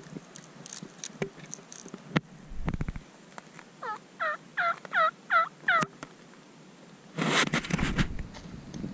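A turkey yelping: a run of about six evenly spaced calls over two seconds in the middle. Near the end, a loud rush of wind or handling noise on the microphone lasts about a second.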